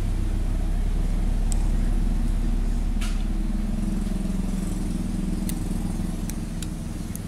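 A steady low, motor-like drone, with a few light clinks of a metal spoon against a ceramic soup bowl.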